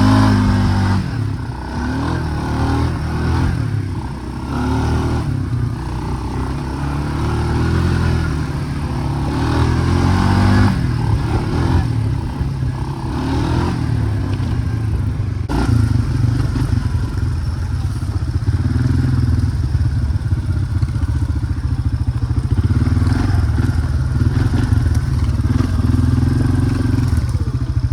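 ATV (four-wheeler) engine running under way, its pitch rising and falling as the throttle is worked, with some clatter over the engine.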